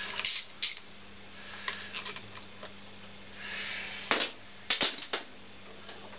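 Tools and metal engine parts being handled on the workbench: scattered sharp clicks and knocks, the loudest cluster about four to five seconds in, with a brief soft hiss just before it.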